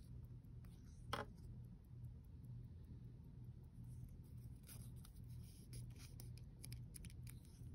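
Faint handling noise of fingers rubbing and scraping on a wristwatch's leather strap and metal case: one brief louder scrape about a second in, then a scatter of small scrapes and clicks in the second half, over a low steady hum.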